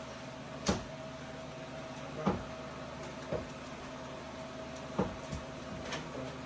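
About six sharp knocks and clacks, spaced unevenly, over a steady faint hum.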